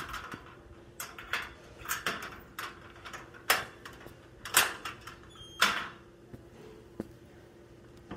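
Irregular sharp knocks and clatters, about a dozen in all, the loudest three coming about a second apart in the middle, over a faint steady hum.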